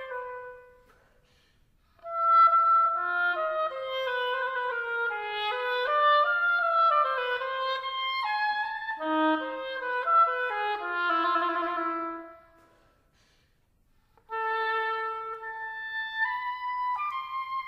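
Oboe playing a slow instrumental melody in phrases, with two pauses of about a second and a half: one just after the start and one about two-thirds of the way in.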